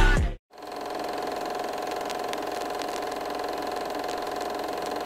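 Music cuts off abruptly just after the start; after a moment of silence a steady mechanical drone sets in, an engine-like hum with several constant tones that holds level throughout.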